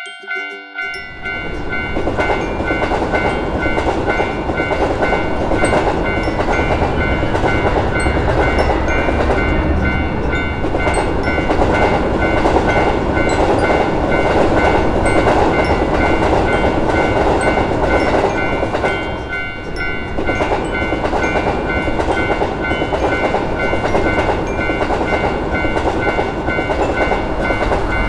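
Level-crossing warning bells ringing steadily while a train passes, its wheels clattering over the rails; the train comes in about a second in and runs on loudly.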